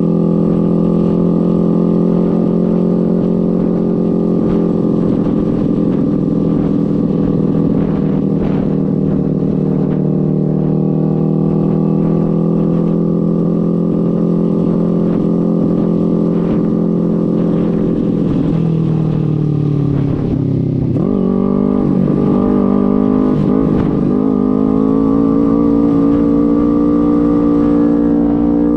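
Sportbike engine running at steady cruising revs, heard from on the bike with wind rushing past. About two-thirds of the way through the revs fall away as the bike slows, then climb back unevenly as it pulls away again.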